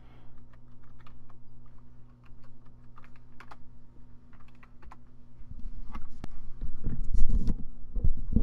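Keys of a computer keyboard being typed, a string of light, quick clicks as a password is entered. Then louder low thumps and rumbling over the last third, above a steady low hum.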